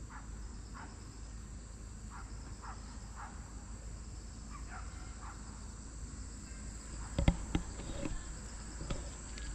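Insects trilling steadily in the background, with a run of short chirps in the first half. About seven seconds in come a few sharp knocks and clicks, the loudest sounds.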